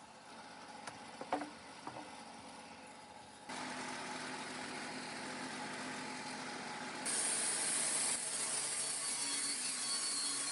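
A few light knocks, then a Wood-Mizer band sawmill running and cutting cedar, a steady mechanical noise with a low hum. About seven seconds in it turns abruptly louder with a strong high hiss.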